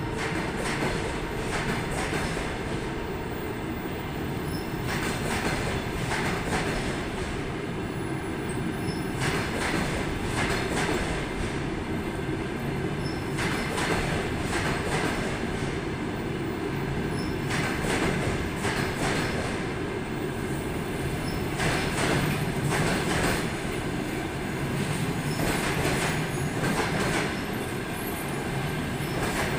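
Double-deck and single-level passenger coaches of a departing train roll past at low speed. There is a steady rumble, and groups of wheel clicks at the rail joints come about every four seconds as each coach's bogies go by.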